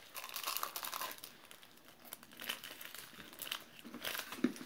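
A sweet's wrapper being crinkled in the fingers, a crackly rustle that is densest in the first second and comes back in short spells.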